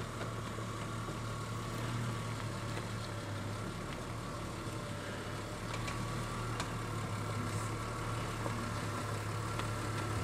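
Jeep Cherokee XJ's engine running low and steady at crawling speed as the Jeep creeps over bare rock.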